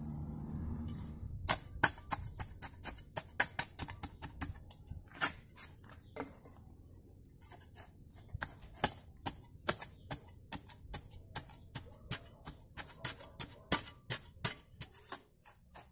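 Short-handled metal shovel digging into stony soil: a run of sharp, irregular scraping clicks, several a second, as the blade strikes grit and stones, with a brief lull about six seconds in.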